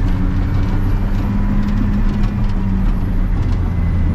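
Cat D7 Next Gen bulldozer's diesel engine running steadily under load while pushing snow, heard from inside the cab as a deep, even drone.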